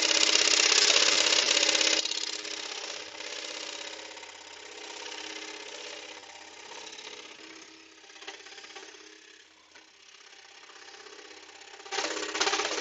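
Axminster AP535SS scroll saw running and cutting through a wooden blank. It is loud for about the first two seconds, drops much quieter, then gets loud again near the end.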